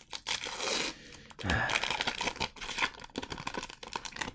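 Foil booster-pack wrapper being torn open and crinkled by hand, a fast run of crackling rustles, with one louder thump about a second and a half in.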